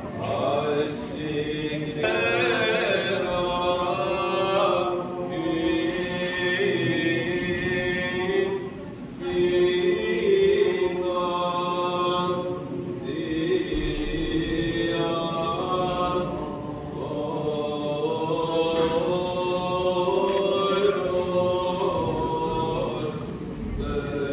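Byzantine chant: voices sing a slow melody over a steady held drone note.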